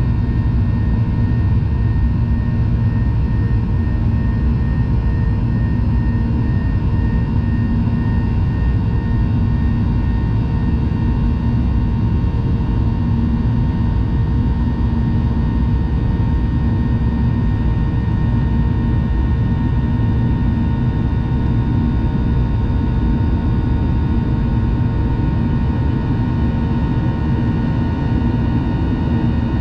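Jet airliner cabin noise in flight: a steady low roar of engines and airflow with a constant engine hum and whine on top. A faint warbling tone fades out about ten seconds in.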